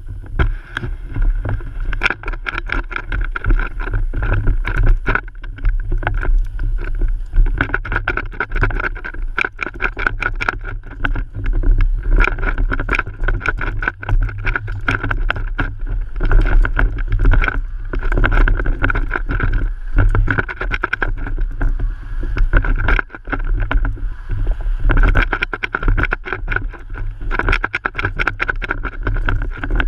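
Home-made spinning GoPro rotor mount on a mountain bike riding a bumpy dirt track: a dense run of knocks and rattles from the bumps and the mount, over wind rush and a steady hum.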